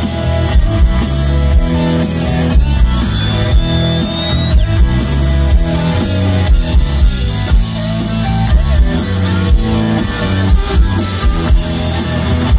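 Rock band playing live through a concert PA in an instrumental passage without vocals: electric guitars, bass and drums keep a steady beat.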